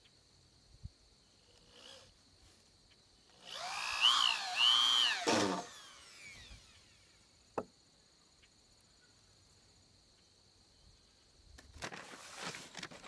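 Cordless drill driving a screw into a birch pole. The motor runs in one burst of about two seconds, its pitch rising and falling twice under the trigger, then winds down and stops. A single sharp click follows a couple of seconds later.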